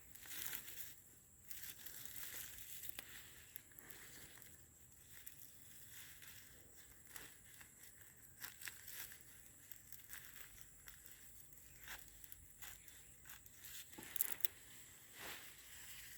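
Faint, irregular crackling and rustling of sweet potato leaves and vines and cogon grass being handled and cut by hand.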